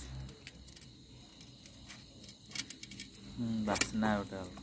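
Faint rustling and light clicks of aluminium foil and a coconut shell being handled on a steel plate. A person's voice comes in briefly a little past the middle and is the loudest sound.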